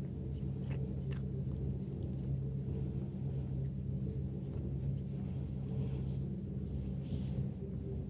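A steady low hum, with faint scratchy rustles from a hand rubbing a cat's long fur.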